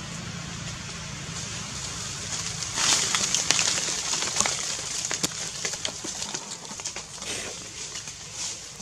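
Dry fallen leaves rustling and crackling as a baby monkey and its mother shift and handle them, with sharp crackles, louder from about three seconds in.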